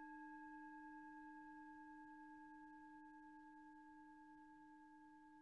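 A single faint ringing tone held on and slowly fading away, a low note with a few fainter, higher overtones above it, like a struck bell or singing bowl.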